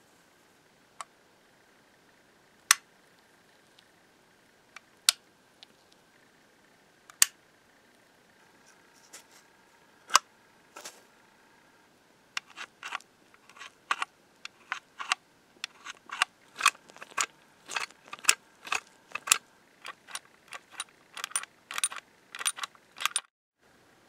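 Restored 1880s cast-iron mortise lock being worked by hand: its spring latch bolt is pushed in and snaps back out with sharp metallic clicks. The clicks are scattered at first, then come quickly, a few a second, through the second half, and stop abruptly just before the end.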